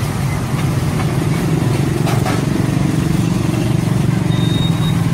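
An engine running steadily nearby, a continuous low rumbling hum, with a brief high-pitched beep near the end.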